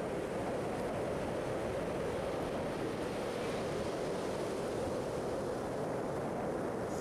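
Steady wash of ocean surf, with wind noise on the microphone.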